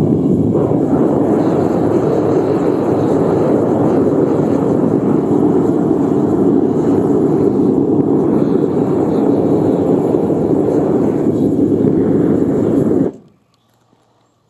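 Gas burner of a melting furnace running with a steady rushing noise. It stops abruptly about a second before the end, as the crucible of molten brass is lifted out.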